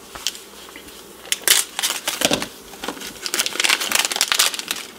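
Plastic packaging crinkling and crackling as a new replacement part is unwrapped by hand. The crackles are scattered at first and come thick and fast from about a second and a half in.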